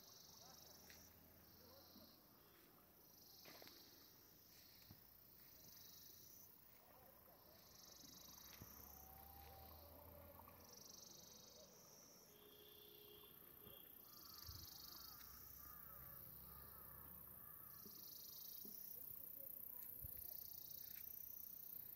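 Faint insect chirping: short, high, buzzy calls repeated every second or two.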